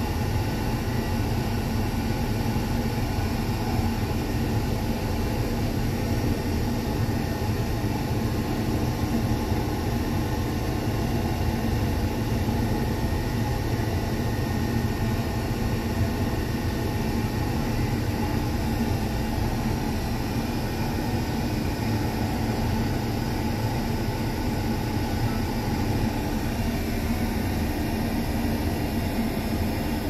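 Combine harvester's engine and machinery running steadily, heard inside the cab while it travels on the road.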